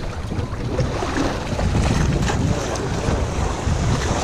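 Wind buffeting the microphone over water sloshing and splashing around a small wooden boat, a steady rumbling wash with no let-up.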